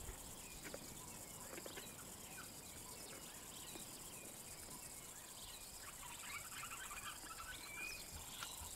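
Faint outdoor ambience: scattered small bird chirps and calls over a low, steady hiss, growing busier about six seconds in.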